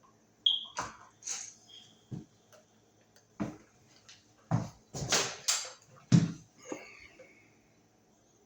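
A new wall receptacle and its wires being handled and pushed back into the electrical box: a string of separate knocks and clicks of hard plastic and metal, some with a short metallic ring. The knocks fall over the first seven seconds or so, then stop.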